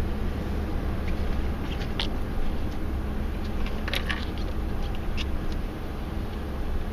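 A car's engine and tyres heard from inside the cabin while driving slowly: a steady low rumble, with a few light clicks about two and four seconds in.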